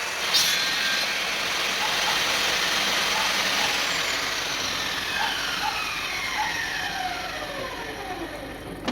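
Table saw running, then winding down: a whine falling steadily in pitch over the second half as the blade and motor coast to a stop.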